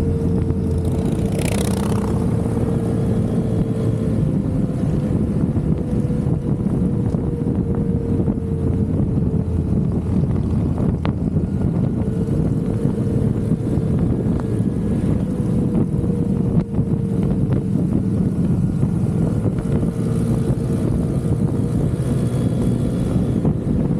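Motorcycle running steadily at cruising speed, its engine drone mixed with wind and road noise from riding. A steady hum holds through it, and a brief hiss sweeps past about a second and a half in.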